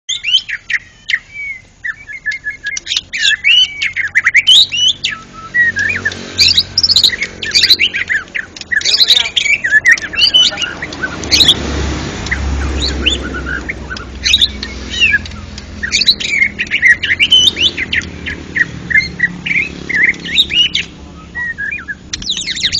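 White-rumped shama (murai batu) singing loudly and almost without a break: fast, varied phrases of whistles, trills and harsher notes separated by short pauses. A low rumble sits underneath, strongest about halfway through.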